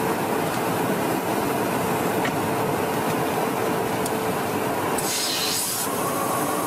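Steady rumbling roar of engines and rushing air inside a tanker aircraft during aerial refuelling, with a short higher hiss about five seconds in.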